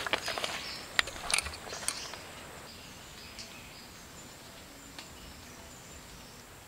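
A few sharp clicks and knocks in the first two seconds, then quiet forest ambience with faint, high-pitched animal calls.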